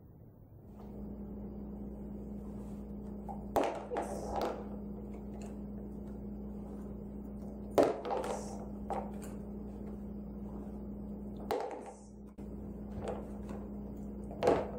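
Small toys being dropped into a clear plastic bin by a dog: four or five sharp thunks a few seconds apart, over a steady low hum.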